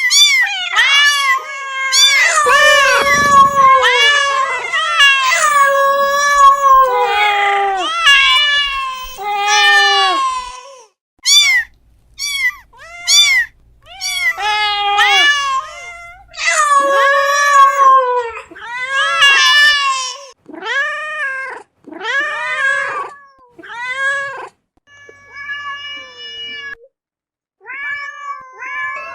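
Domestic cats meowing over and over, each meow rising and falling in pitch. The meows come thick and drawn-out for the first ten seconds or so, then shorter ones with brief pauses between.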